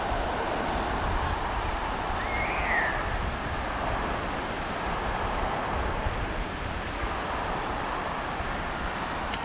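Ocean surf washing onto a sandy beach, a steady rushing noise mixed with wind rumbling on the microphone. A short high call sounds briefly about two seconds in.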